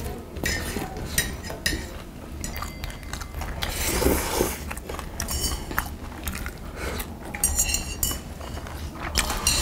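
Metal chopsticks and spoons clicking and clinking against brass bowls during a meal, with eating noises, chewing and a slurp from a bowl, louder around the middle.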